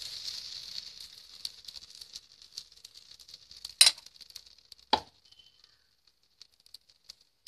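Jackfruit-and-rice dosa batter sizzling on a hot tawa with scattered crackles, the sizzle fading away over the first few seconds. Two sharp clinks about a second apart near the middle.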